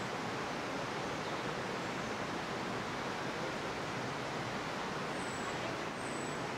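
Steady rushing outdoor background noise with no clear source, and two short high falling chirps near the end.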